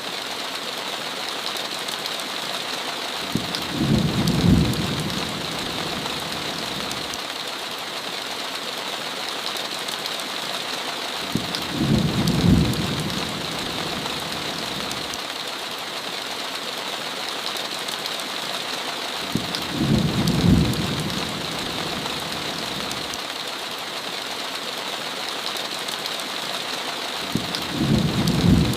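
Steady heavy rain hissing against a window, with a short low rumble of thunder four times at an even spacing of about eight seconds.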